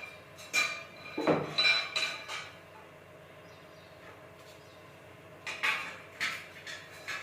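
Metal objects clinking and knocking: a cluster of sharp, ringing taps in the first couple of seconds, a pause, then a few more knocks near the end.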